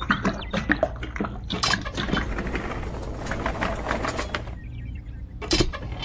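Small motor of a miniature concrete mixer running with a steady hum and rapid, irregular clicking and rattling, while wet concrete is poured and slops out.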